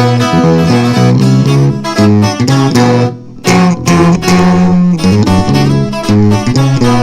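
Instrumental passage of a live regional Mexican band: plucked and strummed guitars over a low bass line that moves note by note, likely tuba. The music drops out briefly about three seconds in, then comes back.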